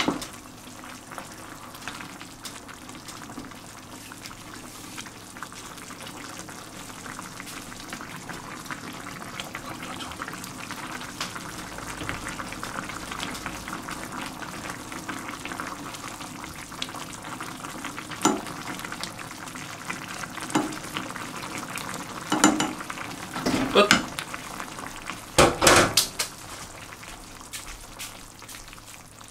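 Instant ramen broth bubbling at a steady boil in a coated pot, stirred with a wooden spatula. Over the last ten seconds or so the spatula knocks and scrapes against the pot several times.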